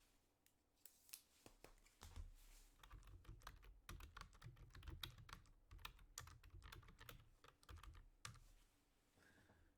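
Faint, irregular clicking and tapping of trading cards being handled, several clicks a second, dying away about a second before the end.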